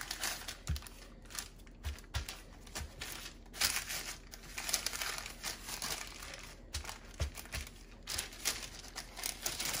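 Parchment paper crinkling and rustling as hands fold it over and press down on a slab of dough, with a few soft low thumps from the pressing.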